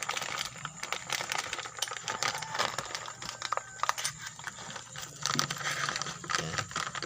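Novatec bicycle hub being handled and turned, giving dense, irregular light clicking and crackling.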